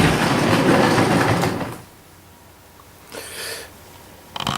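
Hornby Dublo model train running along its track with a steady rattling rush that falls away about two seconds in. A short scraping rustle follows, then a few sharp clicks near the end.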